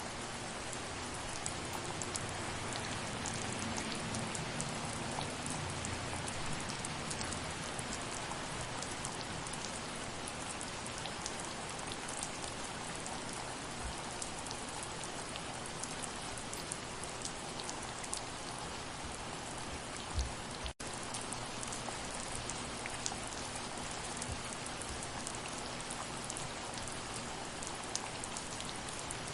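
Steady soft rain: an even hiss flecked with many small individual drop ticks. About two-thirds of the way through there is a brief dull thump, then the sound drops out for a split second and resumes.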